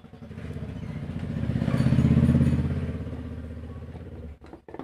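A motor vehicle's engine passing by, growing louder to a peak about two seconds in and then fading away.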